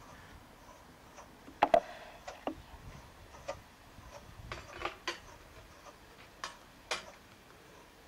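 Wooden fibre picker's swinging spiked cradle clacking and knocking irregularly as it is pushed back and forth through wool fleece. A sharp double knock a little under two seconds in is the loudest.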